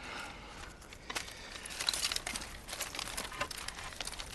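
Dry twigs and brush rustling and crackling, with many irregular small snaps that grow busier about a second in.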